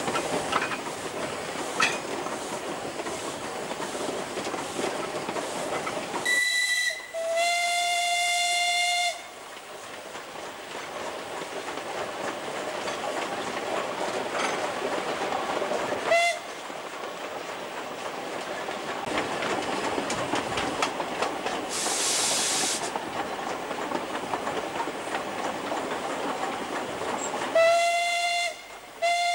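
Steam tank locomotive D17 No. 268 running with its train, a steady rumble with wheel clatter. Its steam whistle sounds a short blast and then a longer one of about two seconds, around six to nine seconds in, then a brief toot around sixteen seconds and two more blasts near the end. A short burst of steam hiss comes about twenty-two seconds in.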